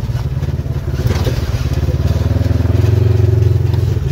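Side-by-side UTV engine running, heard from inside the open cab while driving on a dirt trail. Its pitch and level rise a little over the second half. There are a few short rattles about a second in.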